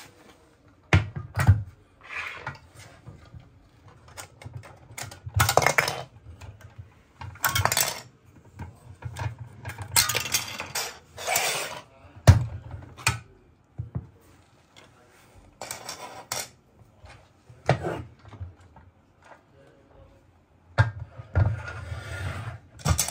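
Metal mounting hardware and hand tools being handled: irregular clinks and knocks, with a few longer rattling stretches.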